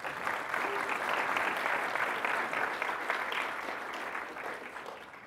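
Audience applauding, the clapping slowly dying away near the end.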